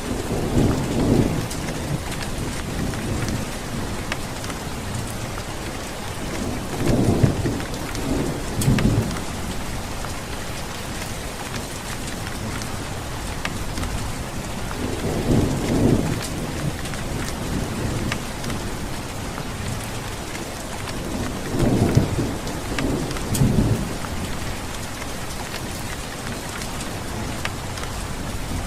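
Steady heavy rain hissing and pattering, with about four low rolls of thunder rumbling up and fading through it.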